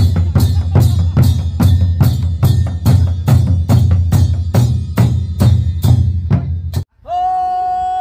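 Large double-headed wooden barrel drums beaten with sticks in a steady, even beat of about two and a half strokes a second, with a small hand cymbal. Near the end the drumming cuts off abruptly and a long held group chant of men's voices begins, the Naga 'ho-hoing'.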